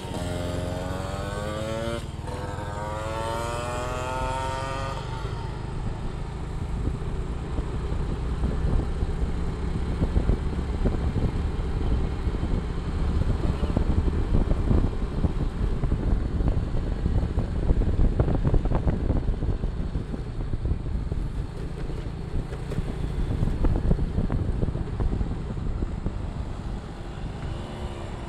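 Small engine of a homemade four-wheel racing kart revving, its pitch sliding up and down over the first few seconds. After that it gives way to a rough, uneven rumble that rises and falls in loudness.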